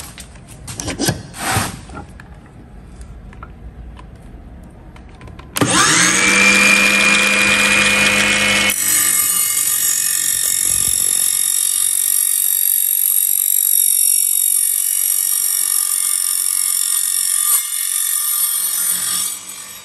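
Ryobi 18V cordless mitre saw with a carbide-tipped metal-cutting blade: a few handling knocks, then the motor spins up about five seconds in, rising in pitch and settling. About three seconds later the blade bites into a 30 mm square steel tube and cuts steadily with a high-pitched whine for about ten seconds, stopping just before the end.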